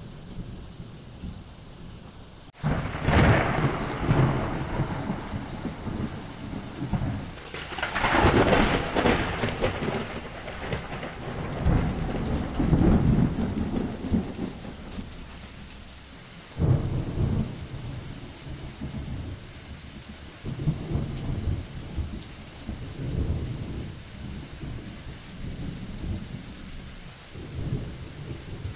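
Steady rain with repeated rolls of thunder. The first crack comes suddenly about two and a half seconds in, then heavier rumbles follow through the first half, with lighter rumbles after.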